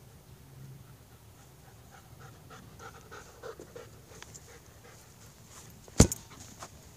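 A dog panting quickly and rhythmically close by, then a single sharp thud about six seconds in as the red ball is kicked.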